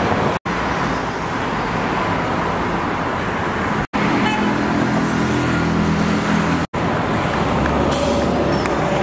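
Steady street traffic noise with a pitched, horn-like tone for a few seconds in the middle. The sound cuts out abruptly three times.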